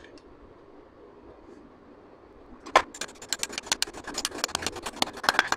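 Small hammer tapping a bearing into a Honda CG 125 engine case half. After a near-quiet start, one sharp strike comes about three seconds in, then a fast run of light metal taps, about eight a second.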